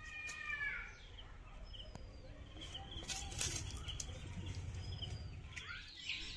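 Birds calling and chirping faintly: short high chirps recur every few seconds, and a longer pitched call comes in the first second. A few light clicks and knocks come about three seconds in.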